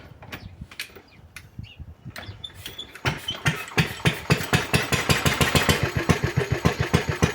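A few scattered mechanical clicks and knocks, then about three seconds in the homemade narrow-gauge locomotive's engine starts and runs with a steady, even beat of about six pulses a second.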